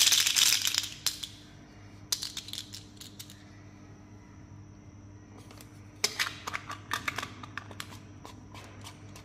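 Small sugar candies rattling inside a clear plastic candy container, loud at first and dying away within about a second. Scattered clicks of hard plastic follow as the container and plastic toys are handled, with another burst of clicks and rattling about six seconds in.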